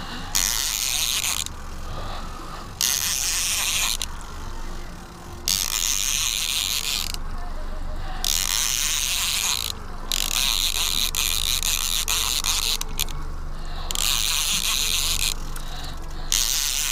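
Trolling reel being cranked in spurts of one to three seconds with short pauses between, its gears giving a ratcheting whir as a fish is wound up from deep water. A steady low hum from the boat's engine runs underneath.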